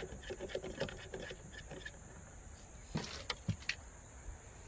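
Screwdriver turning screws back into a fishing bait boat's hull cover: a run of small, quick clicks, then a few louder knocks about three seconds in.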